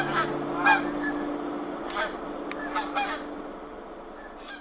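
Geese honking, about six short calls spaced irregularly, over a held low musical note that slowly fades out.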